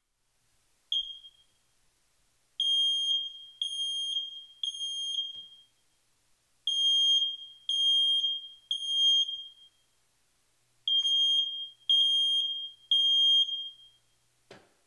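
Handheld smoke alarm sounding: one short chirp, then a piercing high beep in groups of three with a pause between groups, the standard three-beep evacuation pattern. This is the alarm signal the FireAvert plug-in stove shutoff listens for. A single click sounds near the end.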